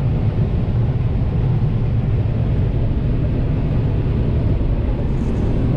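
Combine harvester running steadily while shelling corn: an even, low machine drone throughout.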